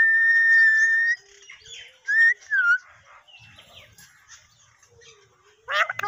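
Alexandrine parakeet whistling and calling: one long steady whistle lasting about a second at the start, two short gliding whistles around two seconds in, then a burst of quick, falling squawky calls near the end.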